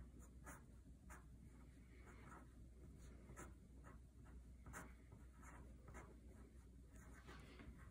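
Faint scratching of a pencil on paper as a name is handwritten, in short irregular strokes.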